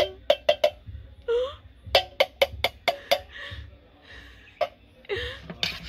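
A tin can knocked repeatedly against a stainless steel bowl to shake out what is left in it: a few sharp knocks, then a quick run of about six more about two seconds in.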